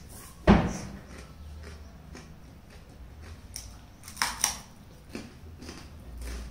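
A person biting and chewing a hard chikki laddu, a ball of jaggery brittle. There is one loud crunch about half a second in, two sharp crunches in quick succession about four seconds in, and soft chewing and crackling between them.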